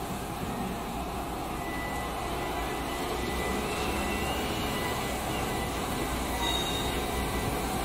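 KNOW-HOW NZE688D battery-electric wheel loader driving and working: a steady mechanical rumble and noise with a thin, steady high whine, and a faint rising whine about halfway through.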